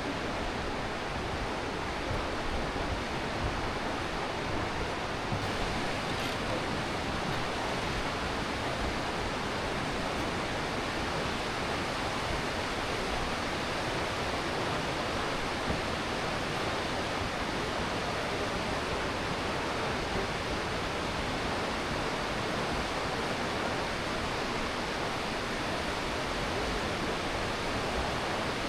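Aare River rushing through the gorge: a steady, unbroken wash of fast-flowing water.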